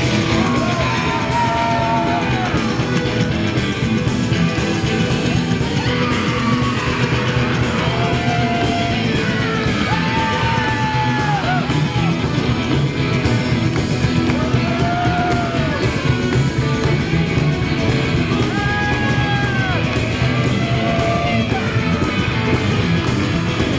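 Live rockabilly band playing at full tilt: an upright double bass slapped in a steady beat, with electric guitar carrying held, bending melody notes. The crowd yells along over the music.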